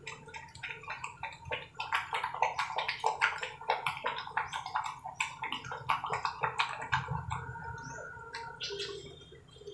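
Puppy lapping milk from a plastic cup: quick wet laps, several a second, thinning out after about seven seconds.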